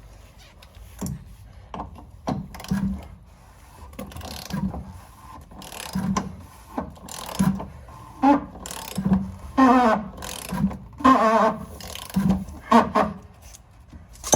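Socket ratchet clicking in repeated short strokes as the fuel filter housing cap is screwed back down and tightened.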